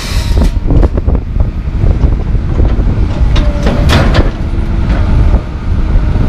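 Komatsu PC220LC track excavator's diesel engine running with a steady low rumble, under a series of sharp knocks and clanks from the working machine, the loudest about four seconds in.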